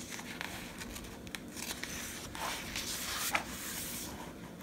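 A picture book's page being turned by hand: paper rustling and swishing for a few seconds, loudest about three seconds in.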